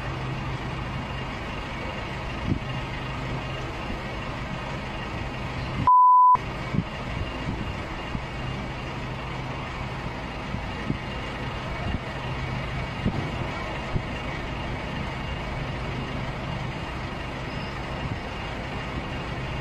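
Steady hum of a nearby vehicle engine running, with road noise and a few faint knocks. About six seconds in, a short, loud, single-pitch beep sounds, and the background cuts out around it.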